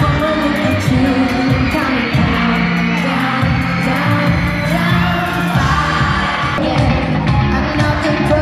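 Live pop song with singing and a steady beat, played over an arena sound system and heard from the stands.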